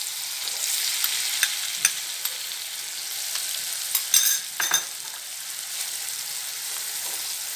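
Ground masala paste frying in hot oil in a kadhai, sizzling steadily, while a spoon stirs it, scraping and clinking against the pan; the loudest clinks come about four seconds in.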